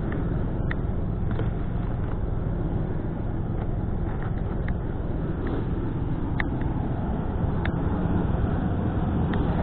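An engine running steadily at idle, a constant low hum, with a few short sharp clicks.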